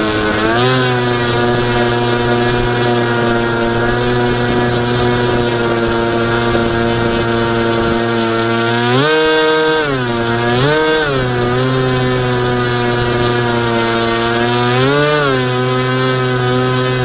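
Electric brushless motor (NTM 4248, 650 kV) of an RC plane swinging an 11x8 propeller, a steady whining hum. Its pitch rises and drops back briefly three times in the second half as the throttle is blipped.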